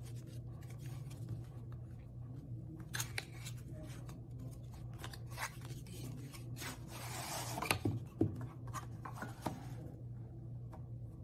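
Hands opening a kraft cardboard glasses box: scattered light clicks and rubbing of cardboard, then a longer sliding scrape about seven seconds in as the leather-covered case slides out of the sleeve, followed by a few sharper knocks. A steady low hum runs underneath.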